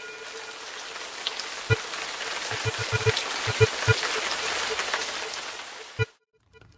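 Crackling, rushing fire sound effect that swells and then cuts off suddenly about six seconds in, over synthesizer music with a few low beats.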